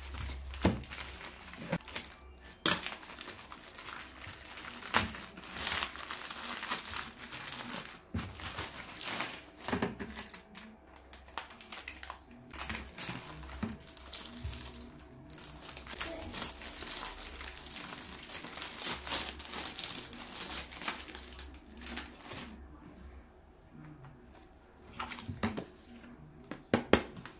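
Plastic mailer packaging and paper crinkling and rustling as a parcel is unpacked by hand, with many short clicks and taps. It is quieter for a couple of seconds near the end, then the clicks pick up again.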